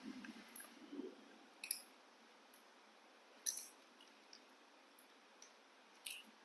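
Faint, sharp clicks a second or two apart as baby macaques crack and pick at sunflower seeds on a plastic tray, with a couple of soft thumps in the first second.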